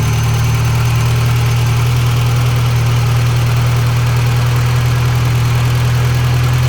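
1989 Volkswagen Jetta's 1.8-litre four-cylinder engine idling steadily. A sensor is unplugged, which makes it run faster and smooths out its rough idle.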